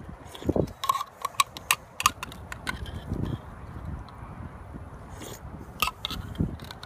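Metal utensil clinking and scraping against the inside of a tin can of beans and franks, with a quick run of sharp, briefly ringing clinks in the first few seconds and a couple more near the end. A few dull low thumps fall in between.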